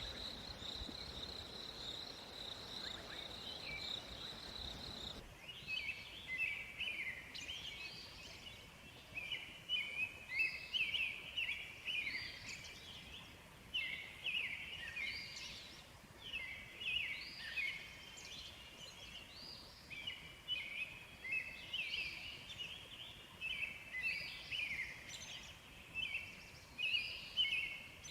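A steady high buzz for the first few seconds, then a chorus of short, high chirping animal calls, many overlapping and repeating several times a second.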